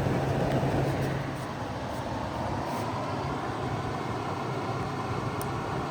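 2009 GE AEW05LMS2 5,200 BTU window air conditioner running with its condenser fan on medium speed: a steady rush of air with a low hum that weakens about a second and a half in. A single motor in this unit drives both the indoor and the condenser fans.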